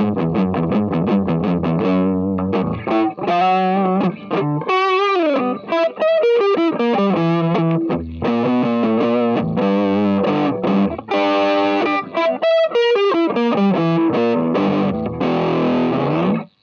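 Distorted electric guitar playing a fast picked lead line, with wide vibrato on held notes about four seconds in and again around twelve seconds, stopping suddenly at the end.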